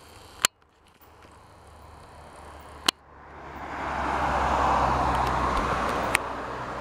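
Rushing wind and rolling noise from riding along the path. It swells from about halfway, as the ride goes into the echoing tunnel. Three sharp clicks come about half a second in, near the middle and near the end.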